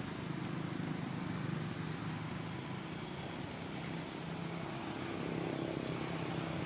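Steady low mechanical hum at an even level, like a motor running, with no clear starts or stops.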